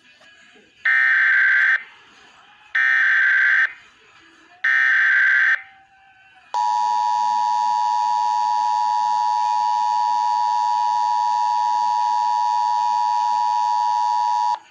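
Emergency Alert System relay from a TFT encoder: three one-second screeching SAME digital header bursts, then the EAS two-tone attention signal (853 and 960 Hz) held steady for about eight seconds before it cuts off. This sequence marks the start of a rebroadcast of the severe thunderstorm warning.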